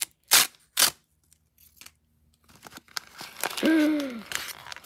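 Foil blind-bag pouch being ripped open in two quick tears, then crinkling as the opened foil is handled and a small box is pulled out. A brief voice sound comes near the end.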